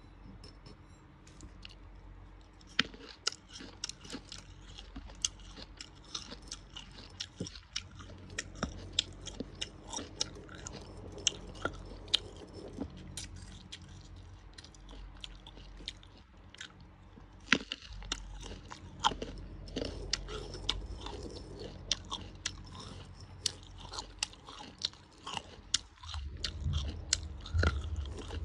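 Close-up crunching and chewing of fresh green jujubes: sharp, crisp bites come again and again, starting about three seconds in, with chewing in between.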